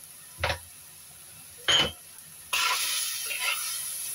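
Metal spatula knocking twice on a wok, then stirring bean sprouts and tomato in the hot wok with a steady sizzle from about halfway through.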